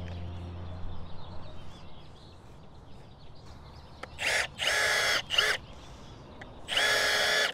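A cordless drill running in four short bursts from about four seconds in, its motor whining as it bores aeration holes into lawn turf. Background music fades out in the first second.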